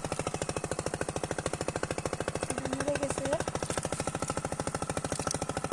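A small engine running steadily nearby with a fast, even putter.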